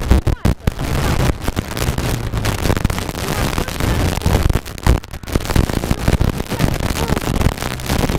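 Rally car engine working hard at speed, heard from inside the cabin, broken by repeated sharp pops and bangs and a few brief dips in the engine note as the throttle is lifted or a gear is changed.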